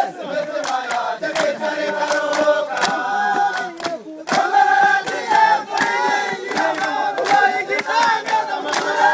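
A large group of soldiers singing a chant together, with steady hand claps keeping the beat and a brief pause about four seconds in.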